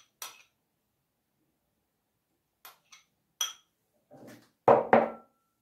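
Metal spoon clinking against a small glass bowl as cottage cheese is spooned in: a few light clinks that ring briefly, then two louder knocks a little before the end.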